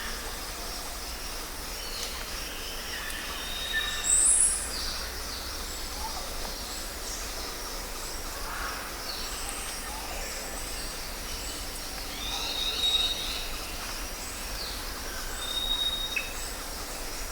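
Rainforest ambience: many birds calling and whistling over a steady background hiss. The loudest call is a high, brief call about four seconds in, and a held whistled note recurs several times later on.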